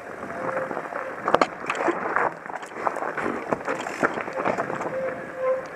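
Mountain bike descending rocky dirt singletrack: tyres rolling over gravel and the bike rattling, with repeated sharp knocks as it hits rocks, and wind buffeting the microphone.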